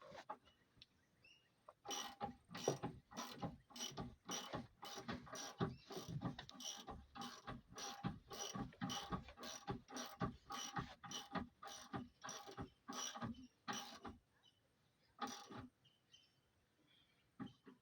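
Metal ratchet pawl clicking steadily, about three clicks a second for some twelve seconds, then once more after a short pause: a hand-worked ratchet being cranked.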